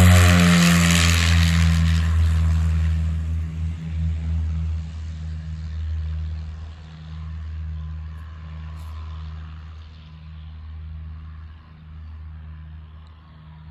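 Piper Seminole's twin four-cylinder piston engines and propellers at takeoff power, loudest at first and then fading steadily as the plane climbs away.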